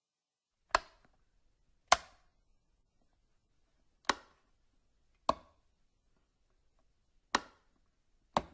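Six sharp single knocks, spaced irregularly one to two seconds apart, each dying away quickly.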